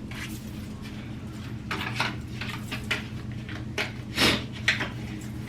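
Several short clatters and knocks of small objects being handled, the strongest a little past four seconds in, over a steady low hum.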